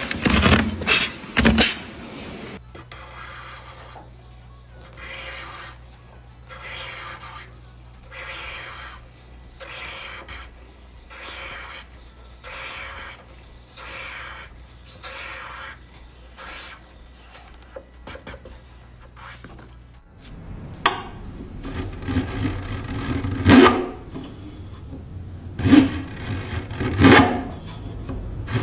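Hand tool strokes rasping across wood, one about every second, over a low steady hum. Later the strokes come louder and less regular.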